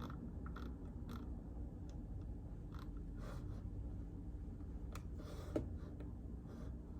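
Scattered, irregular soft keystrokes on a mechanical keyboard with silent linear switches (Outemu Silent Peach), with one sharper knock about five and a half seconds in, over a steady low hum.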